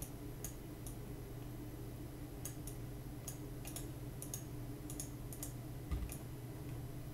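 Light, irregularly spaced clicks of a computer mouse and keyboard over a low steady hum.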